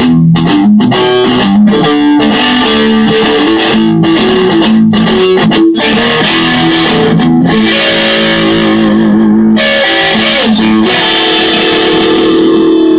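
Custom-built offset-body, Telecaster-style electric guitar with a single neck pickup, played through an amp. It plays quick picked notes and runs at first, then from about eight seconds in, longer strummed chords left to ring.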